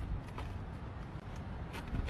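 Low, steady outdoor background rumble, with a few faint clicks near the end.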